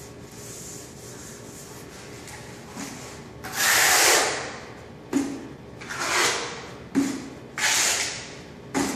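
Scraping and rubbing strokes on a travertine floor tile as it is set into thinset: one long stroke about three and a half seconds in, then five shorter ones about one a second, several opening with a sharp knock.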